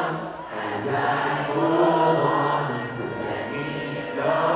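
Live concert music: a male singer singing long, held, chant-like lines into a microphone over the band, heard through the PA from the crowd.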